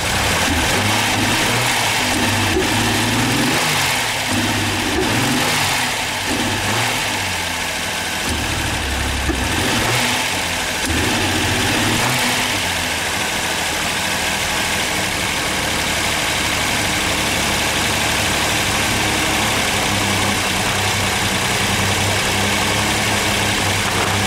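Ford Sierra 2.8-litre Cologne V6 with Bosch K-Jetronic injection idling from cold. For about the first twelve seconds its speed wavers up and down unevenly, then it settles into a steadier idle. The rough running is taken as the sign of bad injectors.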